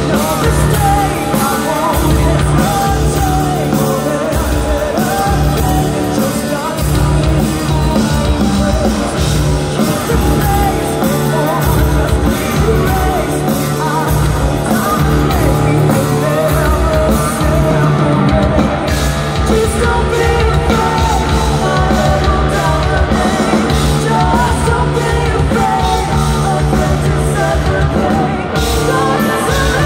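Live rock band playing: a woman singing lead over electric guitars and drums.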